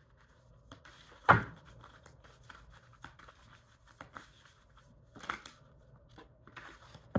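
Cards being handled and laid out on a cloth-covered table: scattered light taps and rustles, a louder single tap about a second in, and another card set down near the end.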